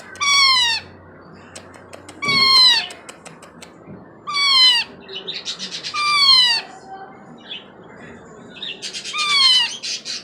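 Baby Indian ringneck parakeet, about four months old, crying: five loud calls, each about half a second long and falling in pitch, about two seconds apart, with softer quick chatter between them. The owner says the bird is fed and neither hungry nor in pain, and cries like this for extra attention.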